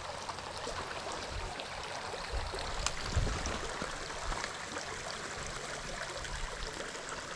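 Creek water running steadily over the stream bed, an even rushing hiss, with a single faint click and a brief low rumble about three seconds in.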